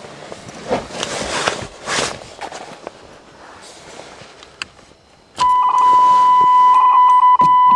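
Rustling and handling noises inside the Pontiac, then a click about five seconds in, and the car's warning buzzer comes on as a loud, steady high-pitched tone.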